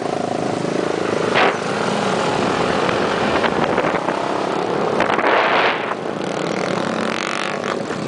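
Motorcycles running on the move, with a steady rush of road and wind noise and a louder swell of noise about five seconds in.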